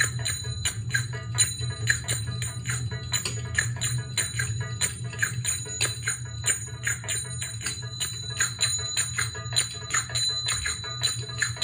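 Zills (finger cymbals) played in the maksum rhythm, right hand on the dum and left hand on the tek: quick metallic ringing strikes, about four a second, in a repeating pattern. A steady low hum runs underneath.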